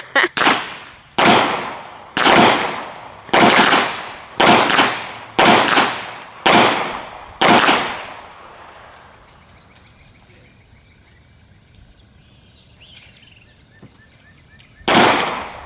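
Handgun shots, about one a second for the first eight seconds, each trailing off in a short echo; after a pause of several seconds, two more shots near the end.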